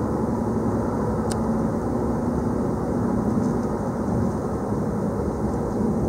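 Steady engine and road noise heard from inside the cab of a vehicle driving along, with a low hum and a single sharp click about a second in.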